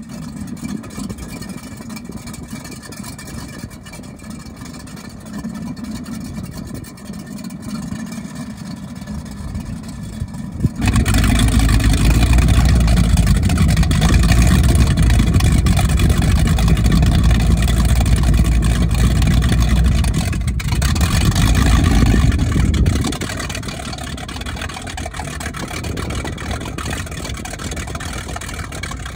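Supercharged big-block Mercury V8 in a ski boat idling. About eleven seconds in it is revved up sharply and held loud for about twelve seconds, then drops back to a lower, steady run.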